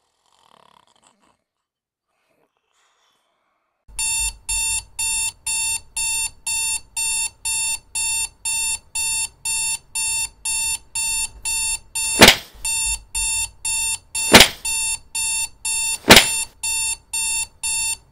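An electronic alarm beeping, fast short beeps on one steady pitch, starting about four seconds in after near silence. Three loud sharp bangs cut in over the beeping in the second half.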